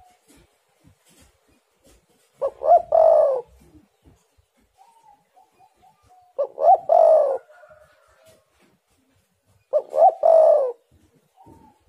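Spotted dove cooing: three phrases about three and a half seconds apart, each two short notes followed by a longer note that falls in pitch, with fainter short notes between the phrases.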